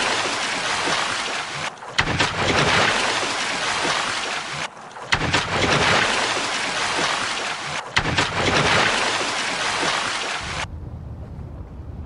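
Loud rushing water noise, like surf or sea water heard underwater, in stretches of about three seconds that each begin with a sharp click, like a short recording looped. About eleven seconds in it cuts to a quieter low rumble.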